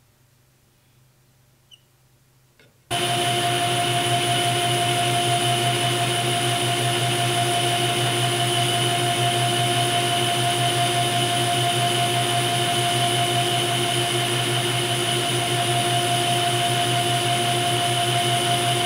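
Metal lathe running at a steady speed with a ductile iron workpiece spinning in the chuck: a steady hum with a high whine from the motor and gears. It starts abruptly about three seconds in, after near silence.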